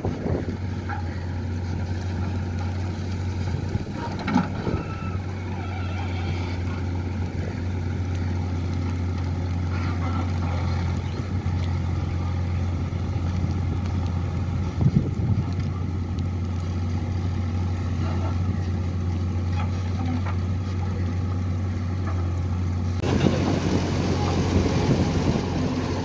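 JCB 3DX backhoe loader's diesel engine running steadily under load while it digs earth and loads a tractor trolley, with a couple of sharp knocks. Near the end it is louder and rougher.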